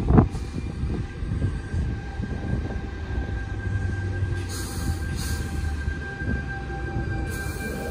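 Sydney Trains C set 'Chopper' electric train pulling into the platform and slowing, with a low rumble and a steady whine. A short, loud bump comes right at the start.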